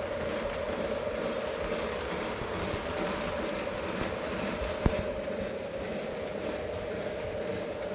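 Lionel model train running on its track: a steady rumble of wheels on the rails with a steady motor whine. A single sharp click comes about five seconds in.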